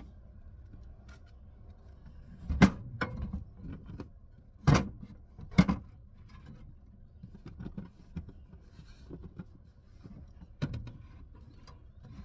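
Handling knocks and clunks as a metal-framed wooden shelf board and a plastic cooler are moved and set in place on a car's back seat. There are several sharp knocks, the loudest about two and a half, four and a half and five and a half seconds in, and lighter taps after them.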